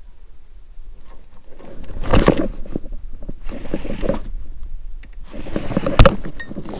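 Handling noise from a baitcasting rod and reel worked right against the camera while a hooked fish is fought: three bursts of rubbing and scraping, and a sharp knock about six seconds in.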